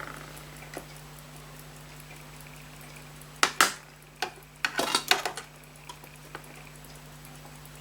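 Small metal tools and parts being handled on a watchmaker's bench: sharp clicks and taps, a pair about three and a half seconds in and a cluster around five seconds, over a steady low hum.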